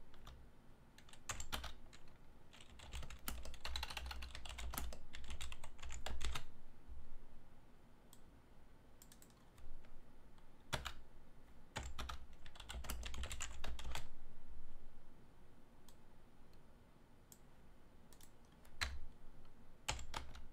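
Computer keyboard typing in several short bursts of keystrokes, with pauses between the bursts.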